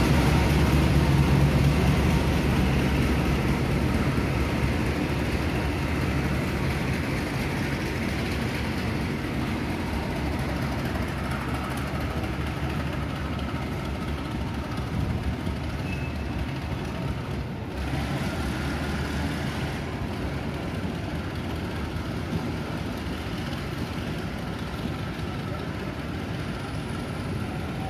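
Railway coaches and a baggage car rolling slowly past on the rails: a continuous rumble of wheels and running gear that slowly fades as the train moves away.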